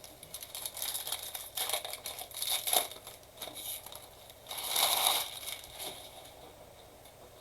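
Plastic trading-card packaging being torn open and crinkled by hand, in irregular bursts, with the loudest crinkling about two seconds in and again around five seconds in, then quieter handling.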